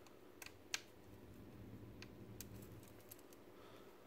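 Faint, sparse clicks of a small precision screwdriver turning tiny screws into a plastic servo motor casing: a handful of sharp ticks, the loudest a little under a second in.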